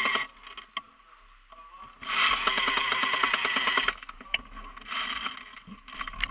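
Airsoft electric gun firing full-auto bursts, a fast mechanical buzz of rapid shots: a burst cutting off just after the start, a longer burst of about two seconds, then two shorter bursts near the end.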